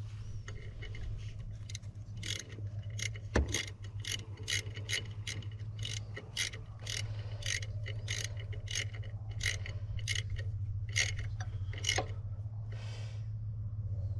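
Hand ratchet wrench being worked to loosen the winch mounting bolts, giving evenly spaced metallic clicks about two a second, over a steady low hum.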